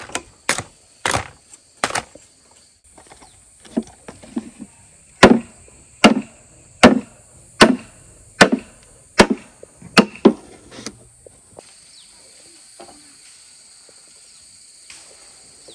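Chopping: a blade striking wood, a few scattered blows at first, then a steady run of strokes a little under a second apart that stops about eleven seconds in. A steady high insect buzz runs underneath and is heard alone after the chopping ends.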